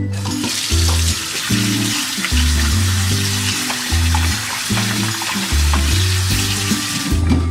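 Food sizzling in hot oil in a frying pan: a steady, dense hiss that starts just after the beginning and cuts off near the end.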